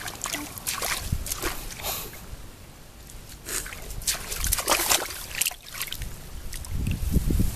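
Shallow muddy water sloshing and splashing in irregular bursts as feet wade and hands grope through it, feeling for fish among the weeds.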